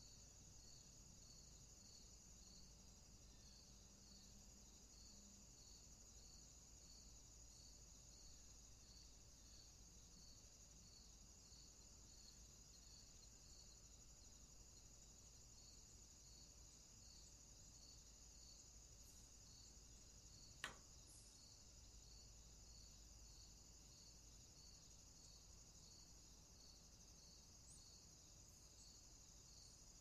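Faint outdoor insect chorus, crickets-like: a steady high chirring with a chirp repeating about one and a half times a second. A single sharp click about two-thirds of the way through.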